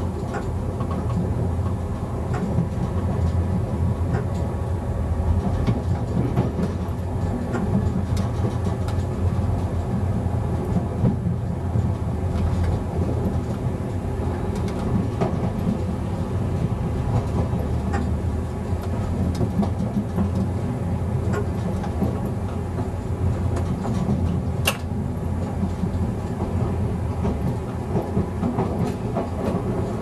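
Czech Railways class 854 diesel railcar running along the line, heard from the driver's cab: a steady low rumble of engine and wheels on rail, with occasional sharp clicks from the track, one louder near the end.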